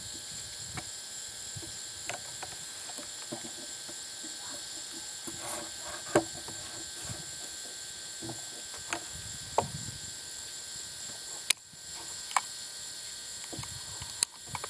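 Steady high-pitched chirring of insects, with a few short sharp clicks and knocks scattered through it.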